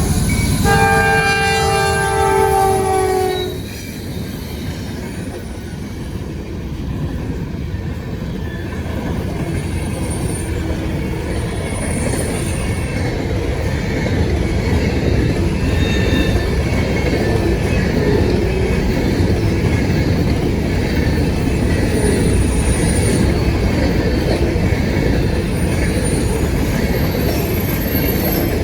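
Freight locomotive horn blowing several tones at once, cutting off about three and a half seconds in. After it comes the steady rumble and clatter of a fast empty grain train's cars rolling past, with faint wheel squeals now and then.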